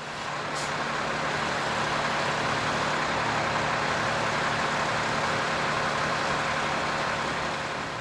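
Heavy diesel demolition machine running steadily: a rough, even engine noise with a low hum under it, swelling up over the first second.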